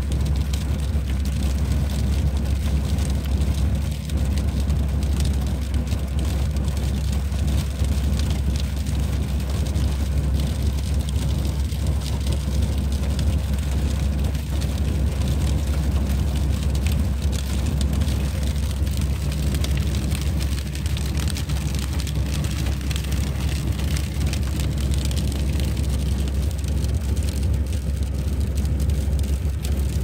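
A vehicle's engine idling steadily with a constant low rumble, heard from inside the cabin.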